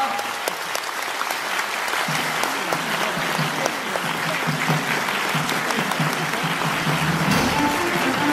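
Theatre audience applauding steadily, a dense patter of clapping. About two seconds in, music begins underneath and becomes clearer near the end.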